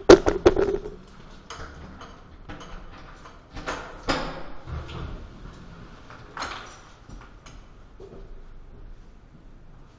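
Camera handling noise: a clatter of knocks and bumps as the camera is moved and set down, followed by a few scattered rustles and knocks, the loudest about four seconds in and another a couple of seconds later.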